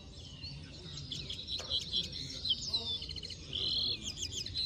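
Caged songbirds singing: quick high chirps and trilled phrases, with a denser, buzzier trill about three and a half seconds in.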